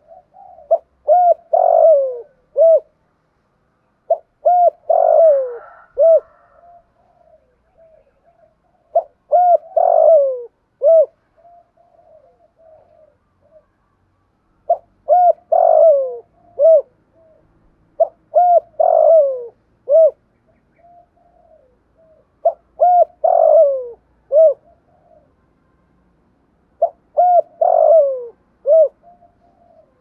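Spotted dove cooing: about seven phrases of several rounded coo notes each, repeated every few seconds, in the deep 'thúc gù' cooing style that keepers prize. Soft, quiet notes come between the phrases.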